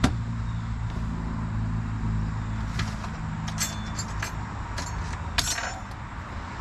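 A motor running steadily with a low hum, with a few sharp clicks through it, some of them ringing briefly like metal.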